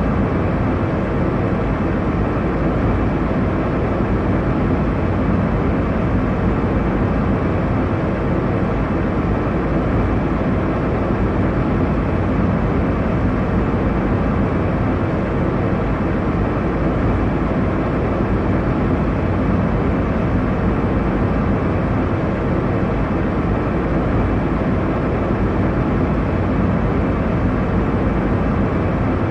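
Airliner cabin noise in flight: a steady low roar of engines and airflow, unchanging throughout, with faint steady hum tones beneath it.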